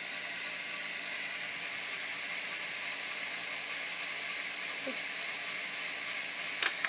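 Lego XL motor running steadily and driving the chipper's plastic gear train, a continuous whirring rattle of gears, with a sharp click near the end.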